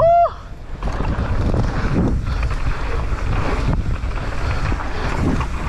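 Wind buffeting the microphone and a steady rumble from a mountain bike riding fast down a dirt trail. A short high yell rises and falls right at the start.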